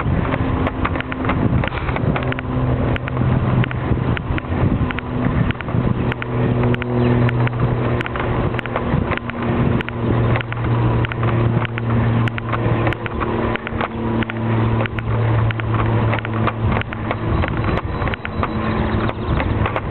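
A vehicle engine running at a steady low pitch while under way, with wind on the microphone and many small knocks and rattles.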